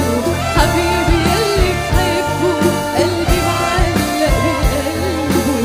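Live band playing an Arabic pop song, with keyboards, bass, drums and percussion over a steady beat, and a woman singing a bending melody into a microphone.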